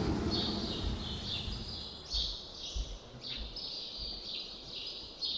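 Birds chirping in an unbroken run of short, high calls, one about every half second, with a few faint low thuds underneath.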